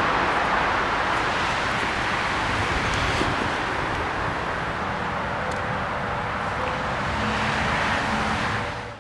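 Steady rush of road traffic noise heard outdoors, fading out near the end.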